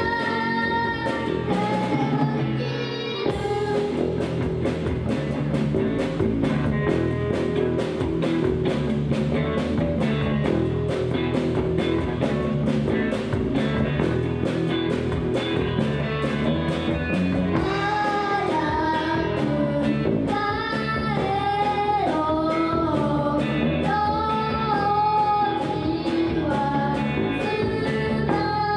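A rock band playing live: electric guitar, bass and a steady drum beat, with a woman singing the melody at the start and again from a little past halfway.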